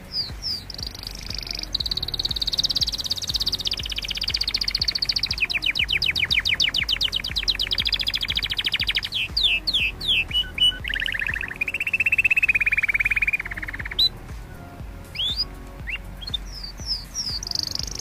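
Canary singing a long run of trills and rolls: a high trill, then a fast buzzy roll of rapid strokes through the middle, a few quick downward-sliding notes, and a lower steady trill. After a short pause with scattered chirps, it starts trilling again near the end.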